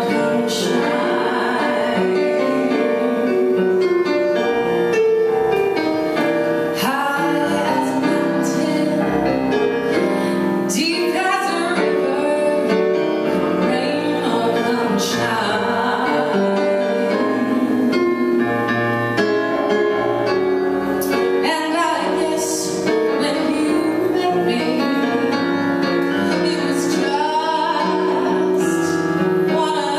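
A woman singing a jazz standard into a handheld microphone, over steady instrumental accompaniment.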